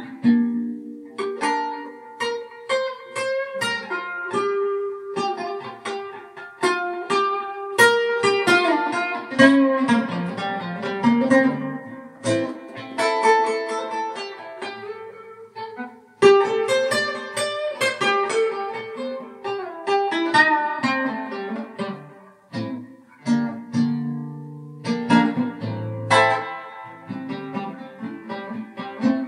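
Instrumental guitar music: plucked single notes and chords ringing out one after another, with a few deeper bass notes near the end.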